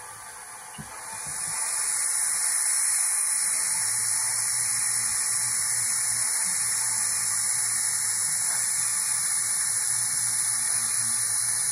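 Sound decoder of an Nn3 model Rio Grande steam locomotive playing a steady steam hiss through its small tender speaker, swelling in over the first couple of seconds. A faint low hum joins in a few seconds in.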